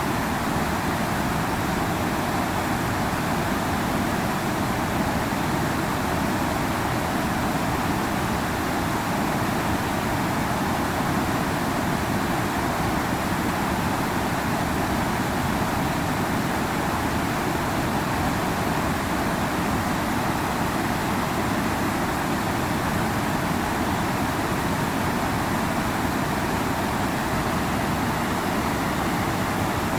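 River water rushing and flowing in a steady, unbroken stream.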